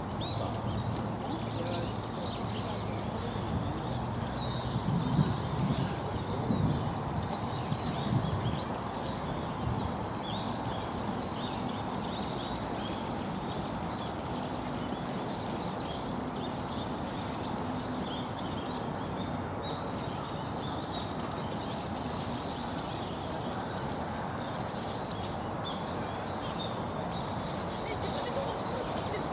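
Small birds chirping and twittering in short, rapid calls, busier in the last third, over a steady outdoor hum of people. A few louder low sounds come about five to eight seconds in.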